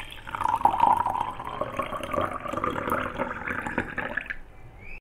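Water poured in a thin stream into a glass jar, splashing and gurgling, the pitch rising steadily as the jar fills; the pouring stops abruptly a little after four seconds in.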